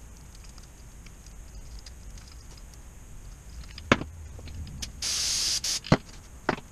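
Brief hiss of an aerosol brake-cleaner can sprayed for under a second, about five seconds in, between sharp knocks of tools and parts being set down on a steel workbench.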